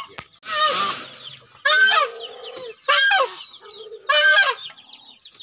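Domestic goose honking: four loud calls about a second apart, the first one harsher than the rest.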